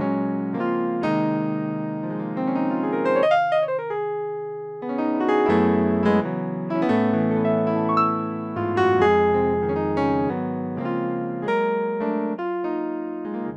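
Gospel-style keyboard chords from the Pocket Gospel Sound Pack app on an iPhone, played from a MIDI keyboard. About three seconds in, the pitch slides up and back down.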